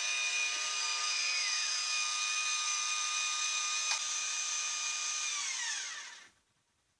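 Sky-Watcher SynScan AZ GoTo mount's geared drive motors whining steadily as the mount slews the telescope to an alignment star, smooth and free of gear slop after servicing. One tone drops away about a second and a half in, there is a small click near four seconds, and the remaining whine falls in pitch as the motors wind down and stop about six seconds in.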